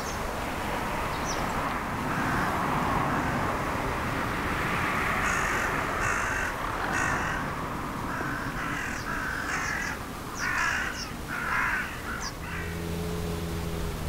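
A bird giving about ten short, harsh, rough calls in an uneven series over the second half, against a steady outdoor hiss. A low steady hum starts near the end.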